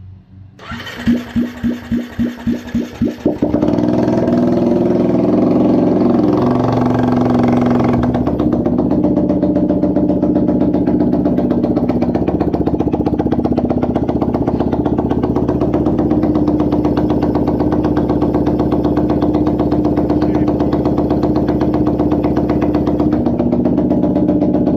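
KTM 350 EXC-F fuel-injected single-cylinder four-stroke engine being cranked, with about three rhythmic cranking pulses a second, catching after about three seconds and then idling steadily. It cuts off abruptly at the end.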